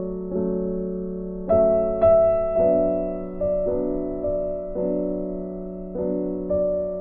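Background piano music: slow chords, a new one struck about every second and left to ring and fade.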